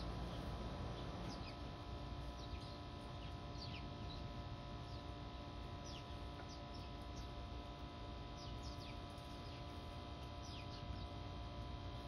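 Small birds chirping around a garden bird feeder: many short, downward-sliding high chirps at irregular intervals, over a steady background hum.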